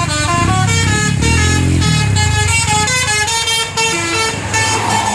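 Tour bus's 'basuri' telolet horn playing a quick melody of stepped notes, about three or four a second. The bus's engine runs underneath and is loudest about a second in.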